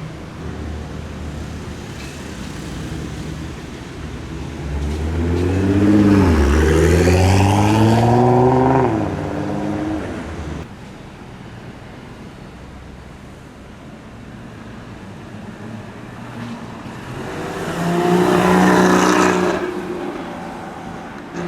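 Two sports cars accelerating past one after the other. The first and loudest passes about five seconds in: its engine note dips once, then climbs hard. The second passes near the end on a steadier note.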